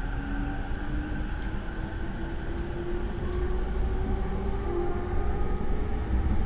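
JR E231 series electric train, heard from inside the motor car: the Mitsubishi IGBT VVVF inverter and traction motors whine in a tone that rises steadily in pitch as the train accelerates, over the rumble of wheels on rail. The motor sound is loud, with a slightly abnormal note.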